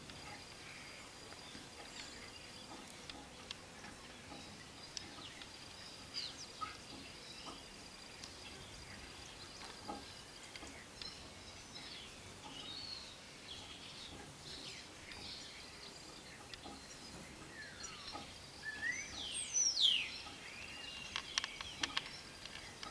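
Small birds chirping and calling over a steady outdoor background hiss, with a louder run of quick sweeping calls towards the end.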